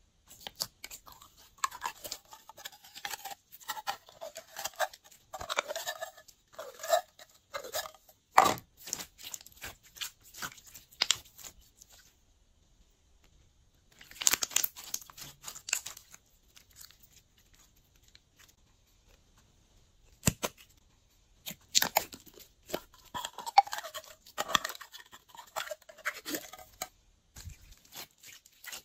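Glossy slime being squeezed and kneaded by hand: sticky, wet crackling and popping that comes in clusters, with a few sharp clicks and two stretches of near quiet in the middle.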